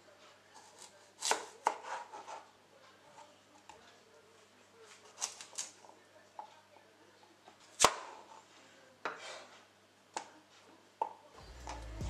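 Kitchen knife cutting a raw sweet potato on a cutting board: irregular sharp knocks as the blade goes through and meets the board, the loudest about eight seconds in.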